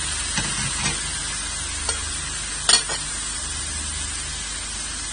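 Ackee and saltfish with peppers and onions sizzling in a stainless steel sauté pan as a plastic spoon stirs it gently. A few light knocks of the spoon against the pan come through, the loudest about two and a half seconds in.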